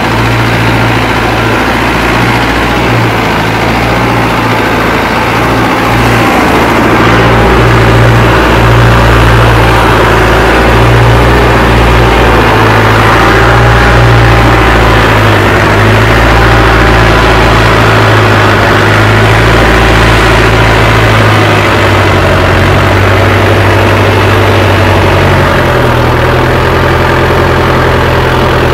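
Mahindra Arjun Novo 605 tractor's turbo diesel engine running steadily under heavy load, pulling a spring-tine cultivator through soil. The engine note shifts down slightly a couple of times in the later part.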